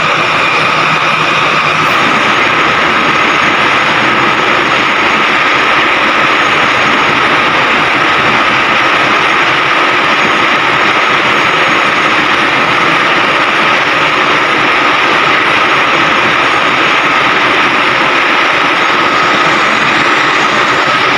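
Machinery running steadily: a constant loud drone with a steady hum in it.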